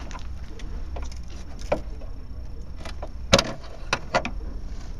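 A few sharp metallic clicks and clacks, the loudest about three-quarters of the way through, as the retaining clip on a Mercedes hood's gas strut is worked loose by hand.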